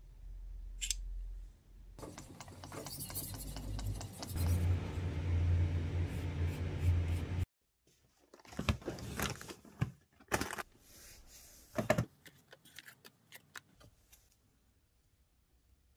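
A loud, noisy sound with a low hum cuts off suddenly. It is followed by scattered clicks, knocks, light metallic rattles and scrapes as an aluminium knife case and its foam inserts are handled on a workbench.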